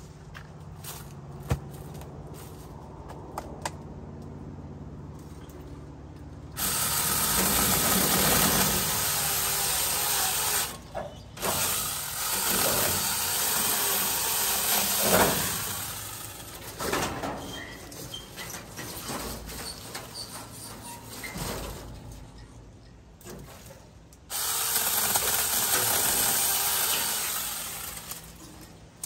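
Tomyvic 6-inch battery-powered mini chainsaw cutting tree branches. It runs in two sudden bursts of several seconds, one about six seconds in and one near the end, with branches and leaves rustling and cracking in between.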